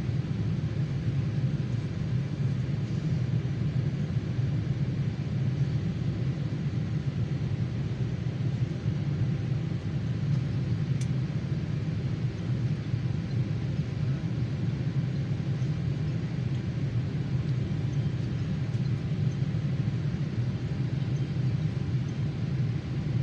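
Steady low rumble of an airliner cabin in flight: engine and airflow noise, even throughout, with a faint click about eleven seconds in.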